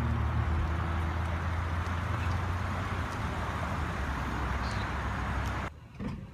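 An SUV rolling slowly up close by, its engine and tyres making a steady low rumble, which cuts off abruptly near the end.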